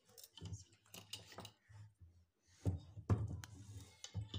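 Short knocks and clicks of a metal scissor-arm stand and its table clamp being handled and fitted together, the loudest knocks a little under three seconds in.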